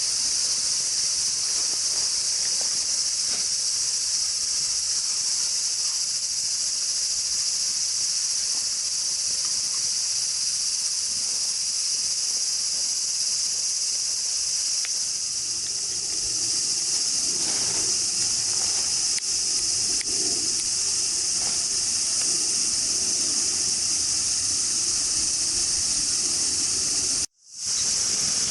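A steady, high-pitched hiss holds throughout, with lower, busier sound joining for several seconds past the middle. The hiss cuts out for an instant near the end.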